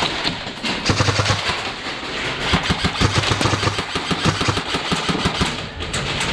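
Airsoft guns firing in rapid, fully automatic bursts of sharp cracks, starting about a second in and running on until near the end.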